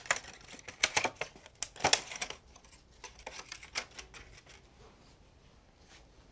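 Medical supplies being handled by gloved hands: a quick run of sharp clicks and rustles for about two and a half seconds, then two more clicks, then a quiet room.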